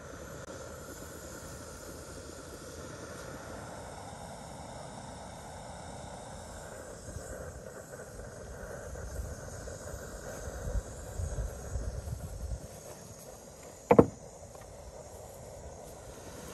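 Steady hiss of a large aluminium pot of water simmering around sealed glass jars of meat, with low rumbles in the middle and one sharp knock about fourteen seconds in.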